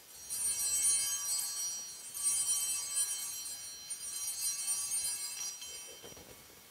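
Altar bells (Sanctus bells) shaken three times, each peal lasting about a second and a half. They mark the elevation of the chalice at the consecration.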